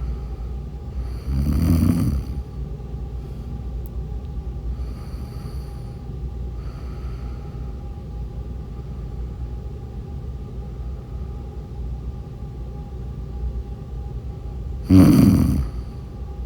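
A sleeping person snoring: two loud snores about thirteen seconds apart, with quieter breaths between them, over a steady low background hum.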